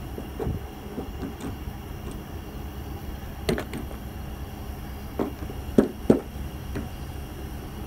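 Scattered hailstones striking a vehicle's body: irregular sharp knocks, the loudest a few in the second half, over a steady low rumble.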